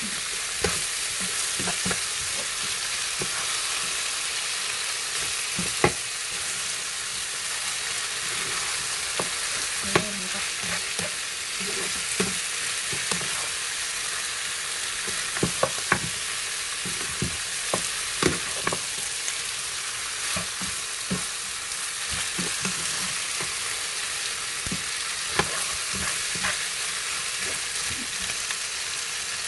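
Goat meat and spices sizzling as they fry in a frying pan while a spatula stirs them. Scattered clicks and scrapes of the spatula against the pan come through the steady sizzle.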